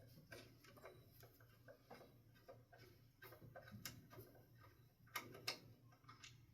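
Faint, steady low motor hum of a Harbor Breeze Armitage ceiling fan running, with a few light clicks, two a little louder about five seconds in.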